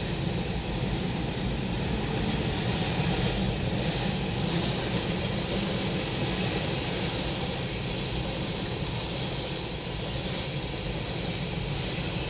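Freight cars of a passing train rolling by, a steady rumble of wheels on the rails that goes on without a break.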